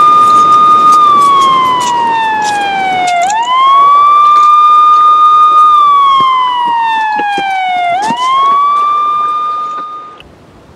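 Emergency-vehicle siren in a slow wail: each cycle rises quickly, holds high, then falls slowly, repeating about every five seconds, and cuts off suddenly near the end. Scattered short clicks and knocks sound under it.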